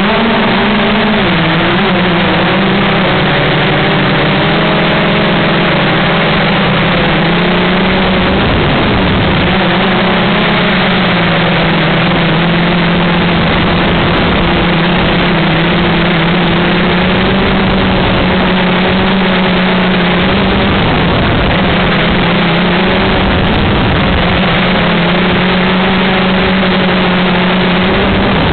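Engine of a small aircraft running steadily in flight, heard from on board as a loud, even drone, with a rushing noise of airflow over it. The pitch settles slightly lower about a second in, then holds steady.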